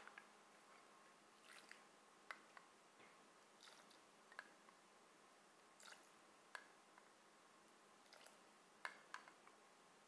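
Near silence broken by faint, irregular clinks and small wet taps, roughly one a second: a metal measuring spoon dipping into a small glass of water and tipping spoonfuls into a glass mixing bowl.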